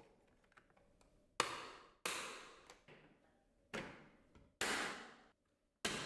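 Hands handling the plastic docking station: five sharp swishes, each fading over about half a second, with short quiet gaps between them.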